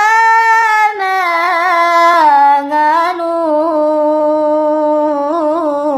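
A single unaccompanied voice singing a sengal chant, drawing out long held notes with small quick ornamental wavers, the pitch stepping down from high to lower over the phrase.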